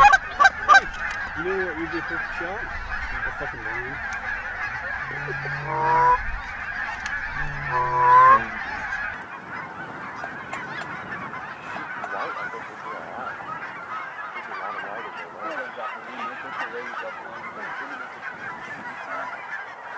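A large flock of snow geese calling: a dense, continuous clamour of overlapping honks. Two louder, rising calls stand out about six and eight seconds in.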